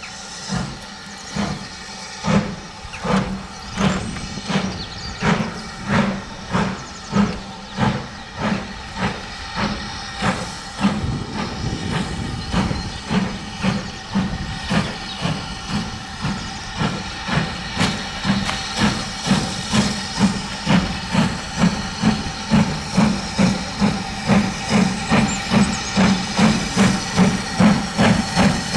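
BR Standard Class 4 2-6-4T steam locomotive 80136 pulling away with a train, its exhaust beats quickening from under one to about two a second and growing louder as it approaches, over a steady hiss of steam.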